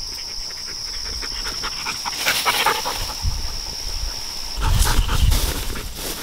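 A dog panting and running through tall grass, with its footfalls and the rustling grass loudest about five seconds in.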